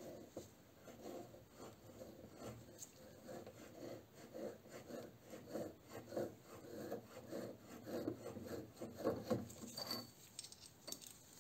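Roller chain of a wrench-and-chain pipe grip rubbing and clinking against a rusty threaded pipe as it is handled, in soft, irregular bursts that grow a little louder near the end as the chain is pulled off the pipe.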